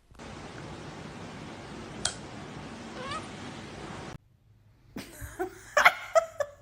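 Steady hiss with one sharp click, cutting off after about four seconds; then a domestic cat meowing in a few short calls near the end.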